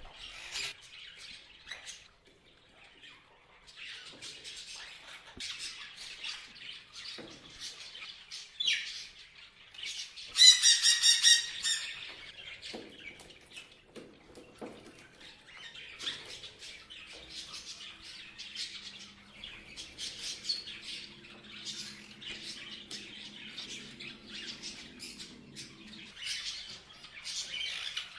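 Parrots chirping in quick, busy bursts, with one loud harsh squawk about ten seconds in.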